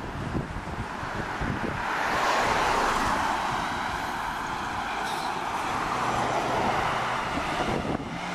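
A car passing close by from behind, its tyre and road noise swelling about two seconds in and staying strong as it pulls ahead, over wind buffeting the microphone.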